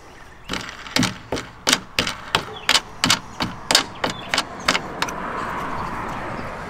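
Sharp clicks and taps, about three a second, from light-mount hardware being worked on the track rail along a jon boat's gunwale. They stop after about four and a half seconds, and a steady rushing noise follows.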